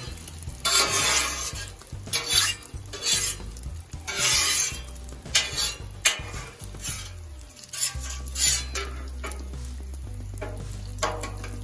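Metal spatula scraping and pushing food around on a hot griddle, with bacon fat sizzling. The scraping comes in strokes of about a second each for the first several seconds, then eases off.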